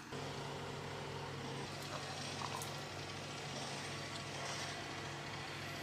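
A steady low machine hum, like a motor or engine running, with a few faint ticks.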